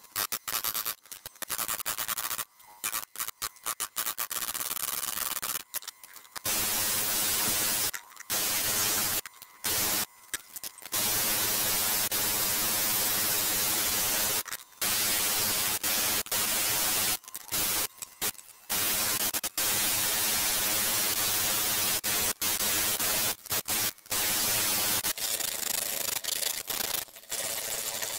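Cordless power file (narrow belt sander) grinding rust off a solid steel frame: a loud, even hissing grind that starts and stops abruptly again and again, a little quieter over the last few seconds.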